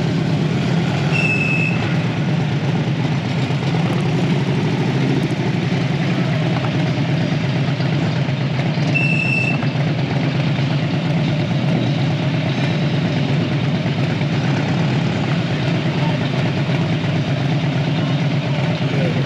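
A group of Harley-Davidson V-twin motorcycles running at low speed, a steady low engine sound, with two short high beeps, one about a second in and one about nine seconds in.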